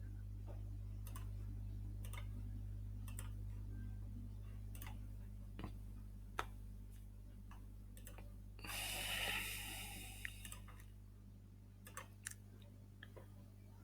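Faint clicks and ticks about once a second over a steady low hum, with a short hissing burst about nine seconds in and a few sharper clicks near the end.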